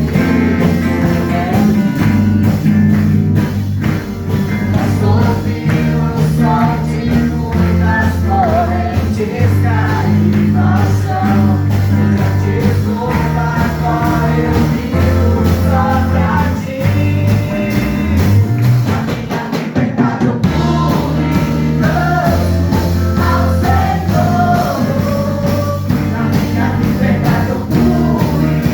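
A band's rock-style song with a singing voice over a steady low bass line. A sliding low note and a brief drop in the low end come about two-thirds of the way through.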